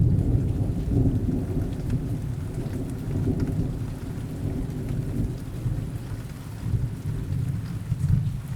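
Steady rain with rolling thunder, a deep rumble that swells and fades several times and eases off near the end.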